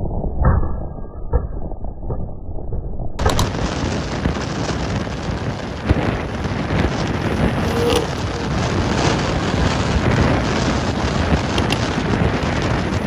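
BMW M340i's turbocharged straight-six running at speed through an AWE Track exhaust, with a few sharp bangs from the exhaust over heavy wind and road rush. It sounds dull for about the first three seconds, then fuller.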